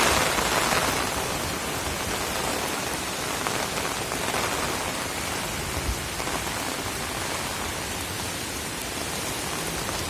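Heavy rain pouring down in a dense, steady hiss that swells briefly at the start.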